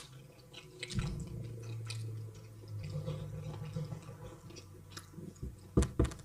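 Close-up eating sounds: chewing and wet mouth noises of someone eating egusi soup with wheat fufu, with a low hum through the middle and two sharp clicks close together near the end.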